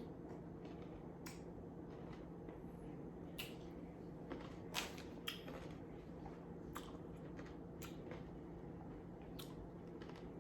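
Crunchy chewing of a pickle coated in cotton candy: scattered crisp bites and crunches, a few louder ones around the middle, over a steady low hum.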